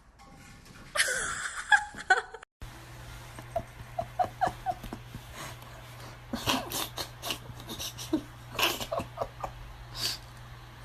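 A brief loud burst of noise about a second in. After a cut, soft breathy laughter with short high-pitched squeaks over a low steady hum.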